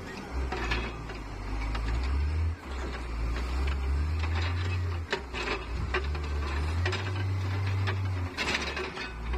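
Caterpillar wheel loader's diesel engine running, its drone rising and falling as the log grapple lifts and sets logs, with scattered clanks and knocks.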